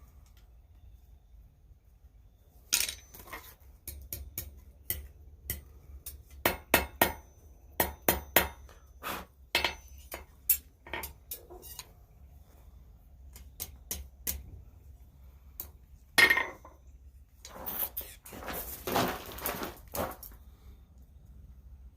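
Irregular metal clinks and knocks from blacksmithing work on steel: single strikes and taps at uneven spacing, not a steady hammering rhythm. Near the end comes a few seconds of denser clattering and scraping.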